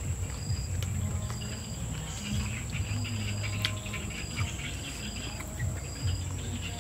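Insects calling: a continuous high-pitched trill, with a shorter high chirp repeating a little more than once a second.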